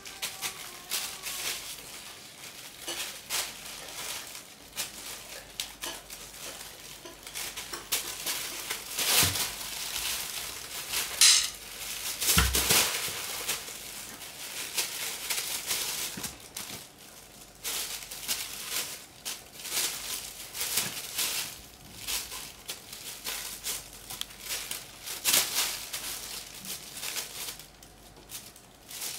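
Plastic bag crinkling and rustling in irregular bursts as kittens scramble and play on it, with a low thump about halfway through.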